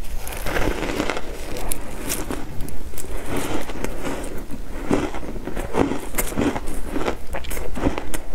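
Close-up crunching of chunks of frozen ice being bitten and chewed: a quick, uneven series of crisp, crackling crunches.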